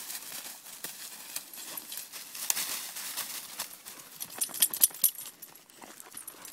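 Dry fallen leaves crunching and rustling under footsteps, an irregular stream of crackles with a sharper, louder cluster about four to five seconds in.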